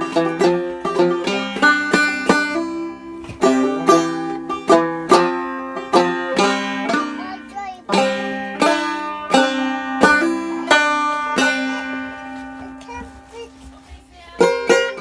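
Instrumental break on a plucked string instrument between verses of an old-time song: quick picked notes that thin out to a few long ringing notes around eleven seconds in, then fast picking again just before the end.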